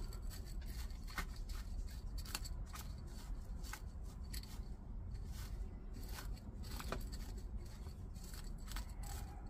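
Small gravel grains clicking and ticking as the top dressing around a potted succulent is pressed and shifted by hand, a few irregular ticks a second over a low steady hum.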